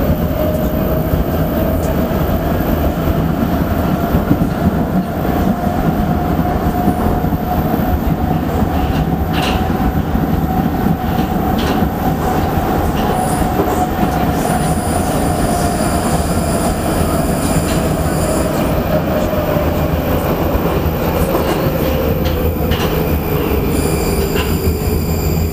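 Prague metro train running through a tunnel, heard from inside the car: a steady, loud rumble of wheels on rails under a motor whine that rises slightly and then falls in pitch over the last third as the train slows. A high wheel squeal comes in briefly a little past halfway and again near the end.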